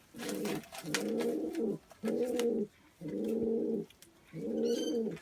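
Pet dove cooing: five drawn-out low coos about a second apart, courtship cooing as the birds pair up, with a brief high chirp near the end.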